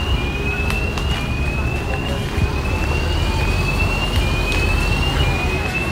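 A siren-like electronic tone rising in pitch, repeating about once a second, over outdoor city background of low traffic rumble and scattered voices.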